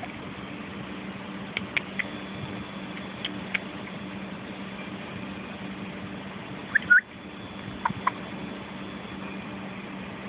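A steady low hum with a few short, high chirps that rise in pitch. A few faint chirps come in the first four seconds, the loudest pair comes about seven seconds in, and two more follow a second later.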